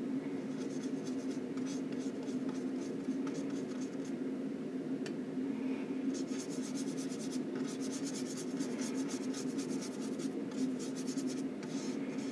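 Oil paint being worked with a paintbrush: runs of quick, scratchy brush strokes, thickest in the second half, over a steady low hum.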